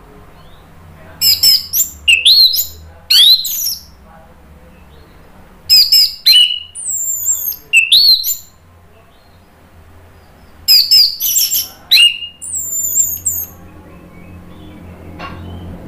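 Orange-headed thrush singing close by in three loud bursts of rapid, sweeping whistled notes, over a faint steady low hum.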